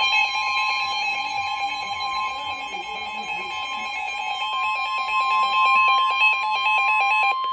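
Emergency Alert System attention tone announcing a severe thunderstorm warning: a loud, steady high-pitched tone with a second, lower tone beneath it, joined about halfway through by a stepping, warbling pattern. It cuts off sharply at the end.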